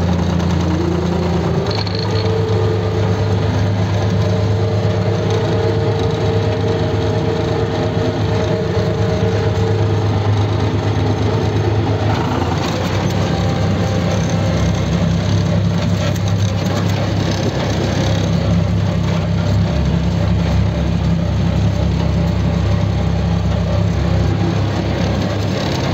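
Goldoni Transcar 60 SN tractor's diesel engine running steadily, heard from inside its cab. It rises briefly in pitch in the first second or two and sounds rougher from about halfway through.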